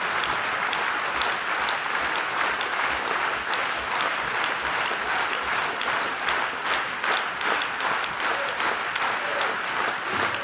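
A large crowd applauding steadily: a standing ovation at the end of a speech.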